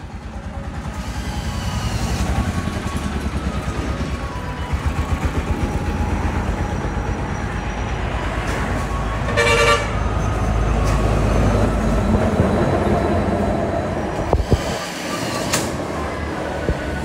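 A motor vehicle's engine running with a steady pulsing rumble, and a short horn toot about nine and a half seconds in.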